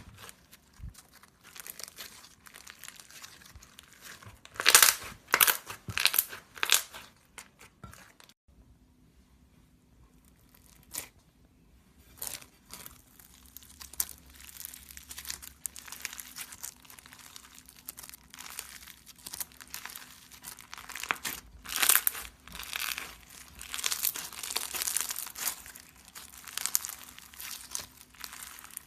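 Crunchy slime being squeezed and pressed by hand, giving rapid sharp crackles and pops. The crackling goes nearly quiet for a few seconds about a third of the way in, then comes back denser and louder toward the end.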